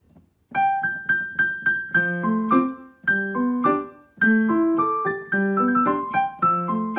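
Background piano music: a light melody over chords in quickly struck, fading notes, starting about half a second in after a brief break.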